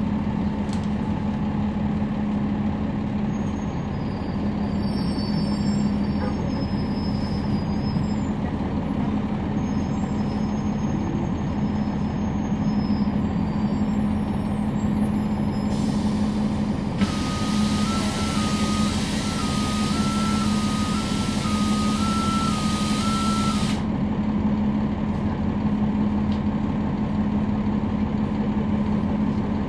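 Interior of a 2011 NABI 40-SFW transit bus with its Cummins ISL9 diesel engine running, a steady low hum. About 16 seconds in, a loud air hiss starts, with an alternating two-tone beeping over it. The hiss and beeping run for about seven seconds and then cut off.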